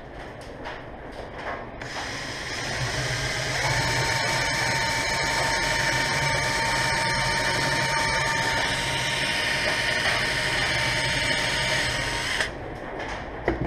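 Hand-held power drill boring a small hole into a wooden lure body. The motor runs steadily with a steady whine from about two seconds in and stops near the end, followed by a sharp knock.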